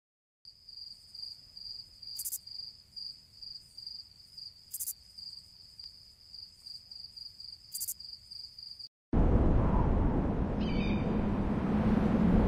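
Crickets chirping in a steady, high, pulsing trill, broken by three sharp clicks. About nine seconds in, it cuts abruptly to a loud, steady rush of wind.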